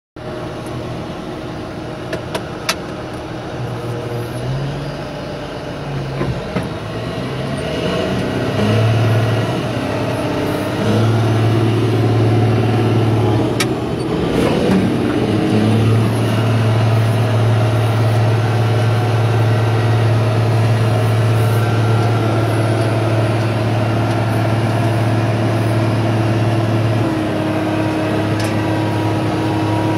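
Caterpillar 140H motor grader's diesel engine running, heard from inside the cab, its pitch stepping up and down in the first half, then holding steady and dropping a little near the end. A couple of sharp clicks come through in the first half.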